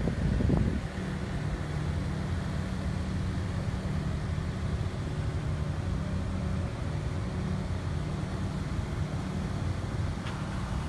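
A vehicle engine idling, a steady low hum, with a short gust of wind on the microphone right at the start.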